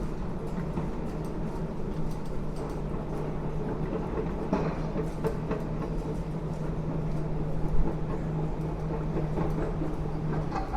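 Excavator diesel engine running steadily at a constant hum, with wind rumbling on the microphone. Two sharp knocks of rubble or machinery, the louder one about two-thirds of the way in.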